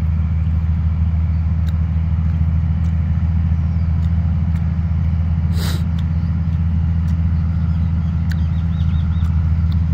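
Steady low engine drone, a motor running at an even speed, with one short sharp noise a little past halfway.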